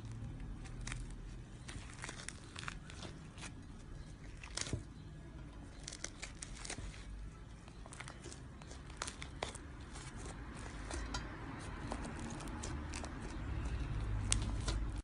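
Slime being squeezed and stretched by hand, giving irregular crackling and popping clicks.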